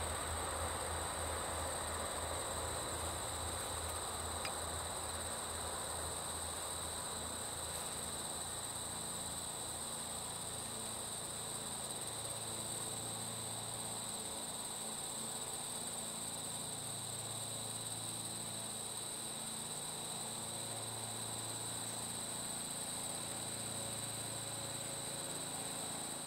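Steady, continuous trilling of crickets. Under it, a diesel locomotive's low rumble fades away over the first several seconds as the train recedes.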